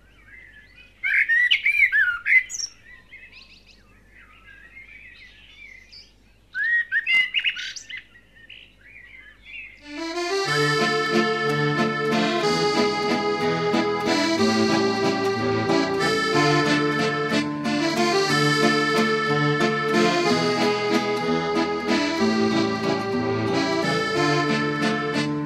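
Birds chirping and singing, with two louder bursts of song about a second and about six and a half seconds in. About ten seconds in, instrumental background music takes over.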